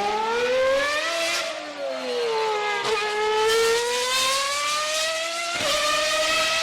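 Formula 1 car engine running at high revs. Its pitch climbs, falls back and climbs again, with sharp breaks at gear changes about three and five and a half seconds in.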